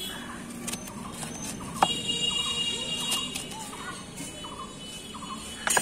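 Large kitchen knife chopping raw guava on a wooden cutting board: a few sharp knocks as the blade goes through the fruit and hits the board.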